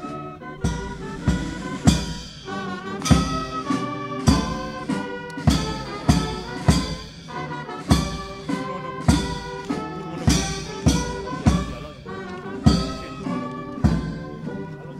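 Brass band playing a march, with a strong drum beat a little under twice a second under the brass melody.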